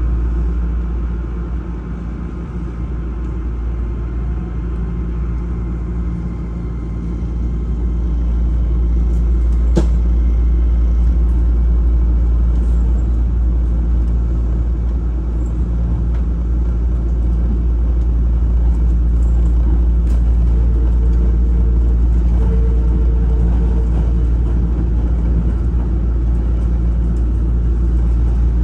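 Hankyu electric train heard from inside the passenger car as it gathers speed out of the station: a steady low rumble of motors and wheels on the rails, growing louder about eight seconds in, with a single sharp click near ten seconds.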